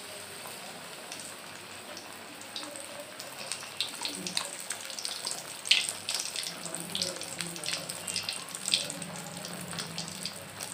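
Masala-coated brinjal (eggplant) slices frying in hot oil in a pan: a steady sizzle with scattered pops and crackles that come more often after the first few seconds.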